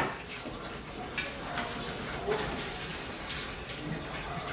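Steady background hiss with a few faint light taps.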